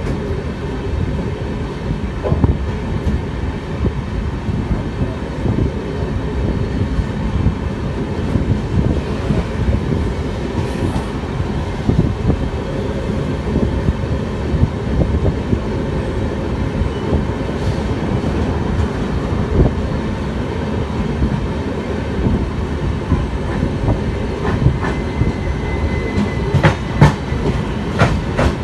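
Two Indian Railways passenger trains running side by side on parallel tracks, heard from aboard one of them: a steady loud rumble with wheels clattering over rail joints, and a run of sharper clacks near the end.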